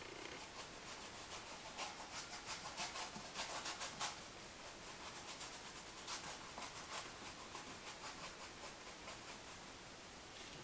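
Flat paintbrush scrubbing paint onto canvas in quick back-and-forth strokes, about three a second, a soft scratchy rubbing that trails off near the end.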